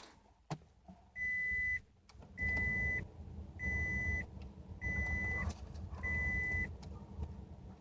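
Scion tC's electronic warning chime beeping five times, evenly spaced about a second apart, each beep a steady high tone, over a faint low rumble.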